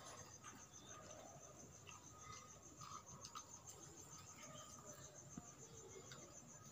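Crickets chirping faintly at night, a steady high pulsing trill over otherwise near silence.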